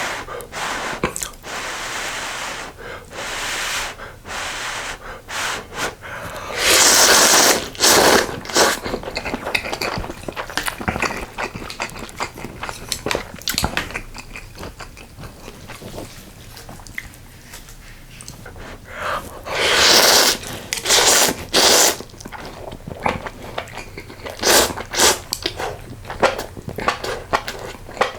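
Close-miked eating of ramen in spicy sausage stew: chewing with small clicks of utensils, and two long, loud slurps of noodles and broth, about seven seconds in and again about twenty seconds in.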